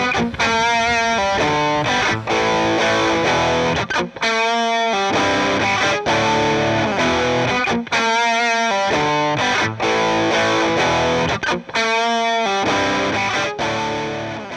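Intro music: rock with distorted electric guitar, fading out at the end.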